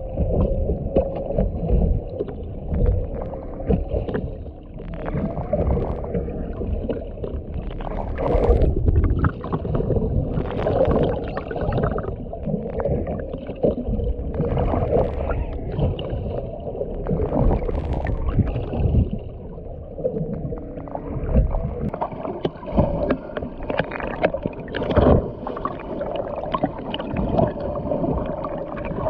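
Underwater sound beside a boat's hull: water sloshing and rumbling against the camera, with a steady faint hum and irregular louder surges.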